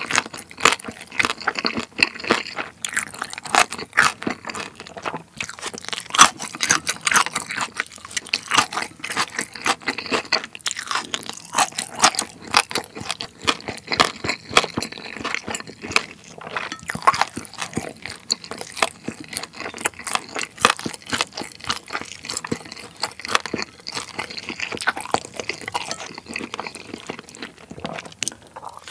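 Close-miked chewing with many sharp, irregular crunches, as of crispy roasted pork hock (schweinshaxe) skin being bitten and chewed.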